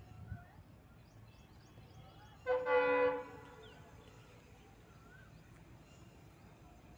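A horn sounding once, a steady single note lasting under a second, heard in the background.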